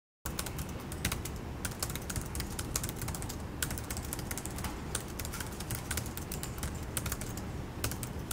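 Fast typing on a 2012 MacBook Pro's scissor-switch laptop keyboard: a dense, irregular run of quick key clicks, starting a moment in after a brief silence.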